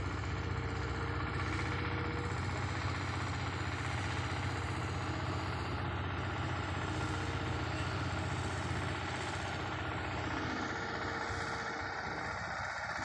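A heavy diesel engine running steadily with a deep, even hum; the low hum thins a little near the end.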